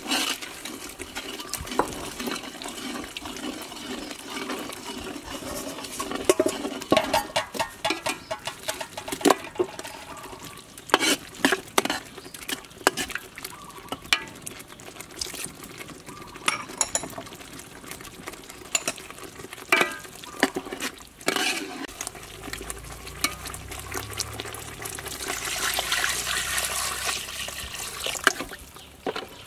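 Metal ladle stirring a thick curry in a large metal pot, with many irregular clicks and knocks of the ladle against the pot. Near the end, coconut milk is poured into the pot with a steady splashing pour.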